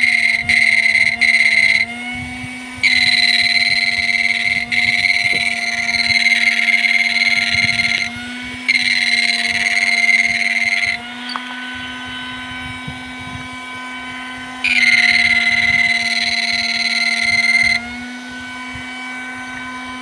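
Two mini MOSFET modules making an electronic sound. A steady low hum with overtones runs throughout. A louder high-pitched whine switches on and off in four stretches, starting near the beginning, about 3 seconds in, about 9 seconds in, and about 15 seconds in.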